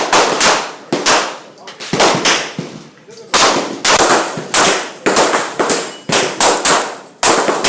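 Firearm shots in quick, uneven succession, about fifteen sharp reports at roughly two a second, each dying away briefly after the crack.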